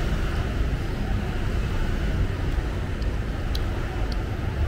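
Steady street traffic noise, a low rumble with a few faint clicks about three to four seconds in.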